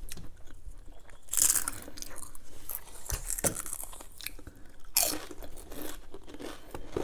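Close-up crunching and chewing of crunchy snack food, with rapid small crackles and two louder crunchy bites, about one and a half seconds in and about five seconds in.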